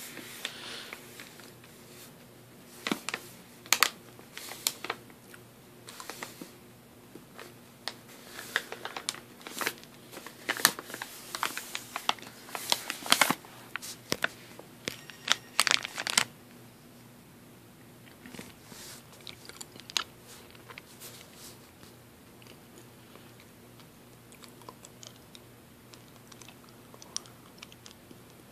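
Close-miked mouth sounds of a cough drop being sucked and crunched: sharp clicks and crunches, dense for the first half, then sparser and fainter.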